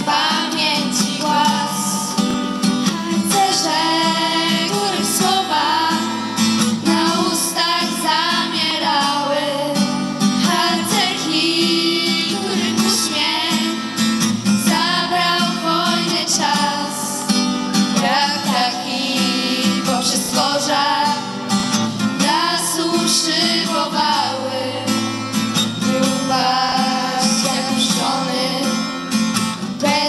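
A group of girls singing a song together into microphones, accompanied by a strummed acoustic guitar.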